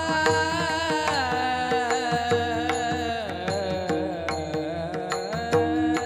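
Devotional singing by a kirtan singer: the voice sweeps up at the start and holds one long, ornamented note that wavers and steps down, over a drone and hand-drum and cymbal beats.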